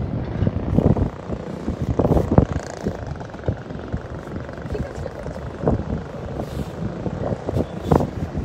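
Wind buffeting a phone's microphone: a low, uneven rushing with irregular gusts.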